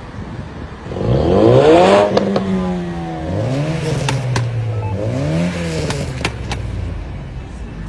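A car engine revved hard twice at a standstill. The first rev climbs steeply about a second in and is the loudest, then winds back down; a shorter second rev rises and falls around five seconds in.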